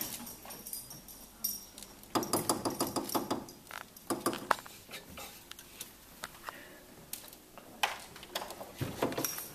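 A Doberman searching for a treat in and around a plastic tub and frame: scattered clinks and knocks, with a quick run of taps about two seconds in.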